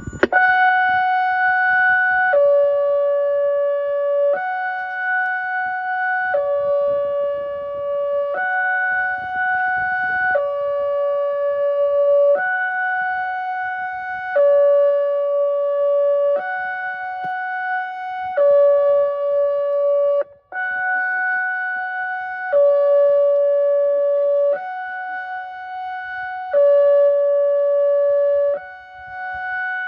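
ATI HPSS 12 electronic speaker siren sounding its hi-lo alert tone during a scheduled test. It alternates between two pitches, holding each for about two seconds.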